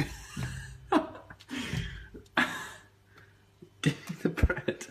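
A man's breathy chuckling in several short bursts, followed by a few quick knocks near the end.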